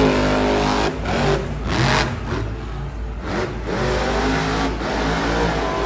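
Son-uva Digger monster truck's supercharged V8 revving hard, its pitch climbing and dropping again and again as the truck spins in the dirt.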